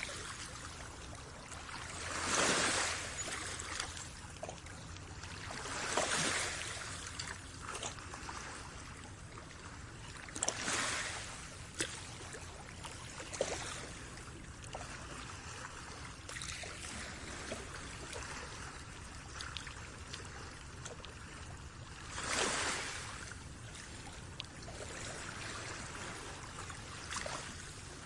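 Small waves washing in one after another at uneven intervals of a few seconds, each a short rush of water, with trickling and light splashes between them.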